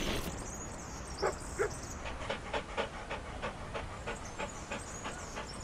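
A dog panting rapidly, about four short breaths a second. Two short, sharper sounds come about a second in, before the steady panting.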